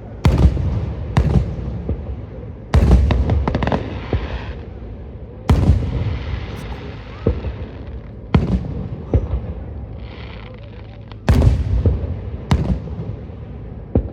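Fireworks going off: about ten sharp bangs at uneven intervals of one to two seconds, each trailing off in a rumbling echo, with a brief crackling hiss after a few of the bursts.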